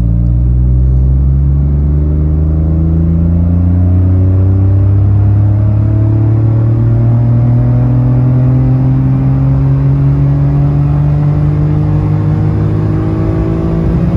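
Citroen C1's engine pulling hard in second gear, heard inside the cabin, its note rising slowly and steadily with no gear change as the car accelerates. The engine is breathing through its standard air box.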